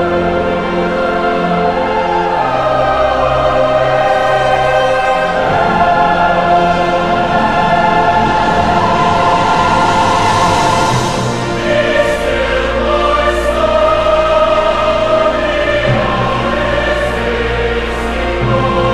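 Choir singing a slow, sustained piece, its chords held for several seconds at a time, with a deep bass note coming in about halfway through.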